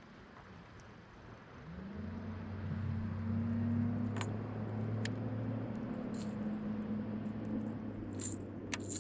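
A motor's steady hum starts about two seconds in, rising briefly in pitch as it spins up and then holding. Light metallic clinks and ticks come now and then over it.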